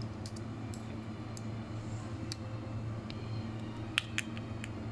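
Small screwdriver clicking faintly against the centre screw of a reel's Magforce brake dial as the screw is undone, with two sharper ticks about four seconds in, over a steady low hum.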